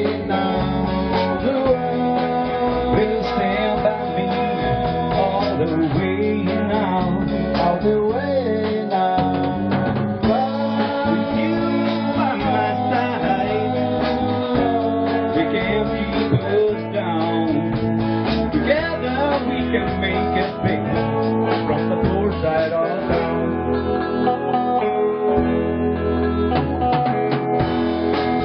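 Music led by guitar, playing steadily throughout.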